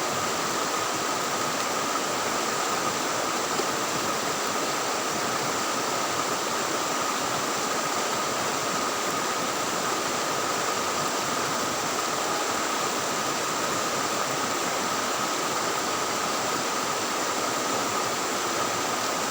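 Fast-flowing river water rushing steadily, with a thin steady high tone running through it.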